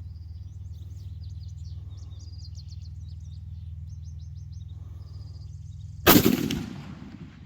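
A single rifle shot from a Remington 700 AAC SD in .308 with a 20-inch heavy barrel: one sharp report about six seconds in that dies away over about a second. Before it, a steady low hum and repeated high chirps.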